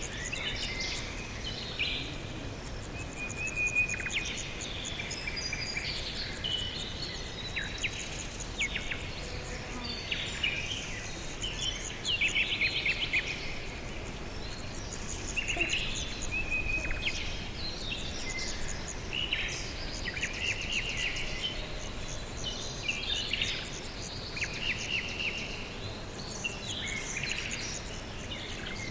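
Several songbirds singing over a steady outdoor background hiss: a continual mix of whistled notes, short trills and quick chirps, overlapping one another.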